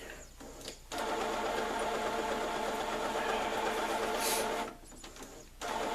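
Brother inkjet printer running its head-cleaning cycle on the black ink, the motor running steadily. It starts about a second in, stops for about a second near the end, then starts again.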